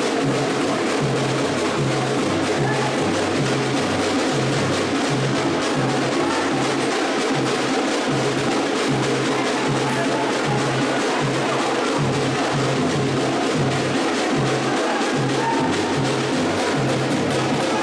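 Background music with a steady beat: percussion over a bass note that repeats in a regular rhythm.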